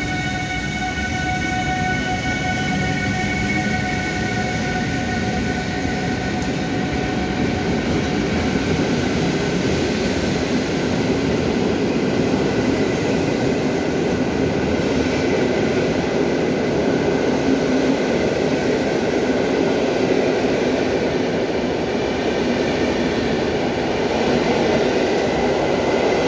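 A PKP Intercity EU160 (Pesa Gama) electric locomotive whines steadily for the first couple of seconds as it moves off. Then its passenger coaches roll past with a continuous rumble of wheels on rail that grows louder as the train gathers speed, in the hall of an underground station.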